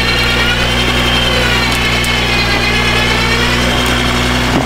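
Vehicle engine running at a steady speed under load, with a higher whine that slowly rises and falls in pitch.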